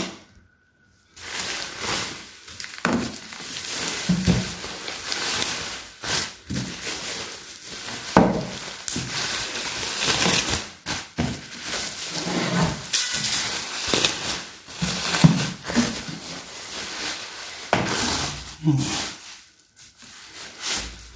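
Bubble wrap and plastic sheeting crinkling and rustling as they are unwrapped by hand from a laptop, in a run of irregular crackles. It starts after about a second of silence and quietens near the end.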